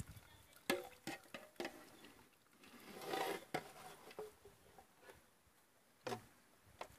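Faint scattered clinks and taps of dishes and utensils being handled, with a brief rustling noise about three seconds in.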